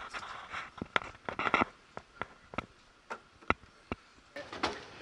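Irregular clicks and light knocks with brief rustling, from canoes and kayaks being strapped down on a boat trailer.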